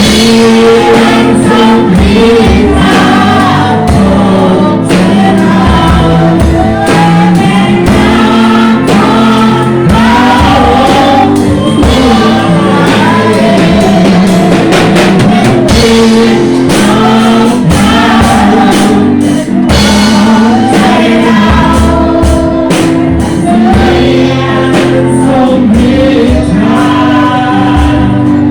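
Christian worship song sung by a group of voices over a live band, with a drum kit keeping a steady beat.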